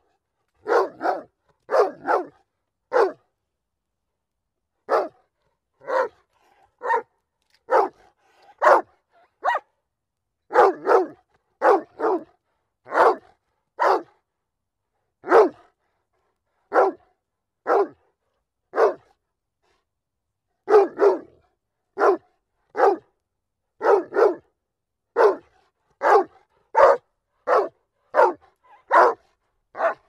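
A dog barking repeatedly, in single and double barks at roughly one a second, pausing briefly about three seconds in and again about twenty seconds in.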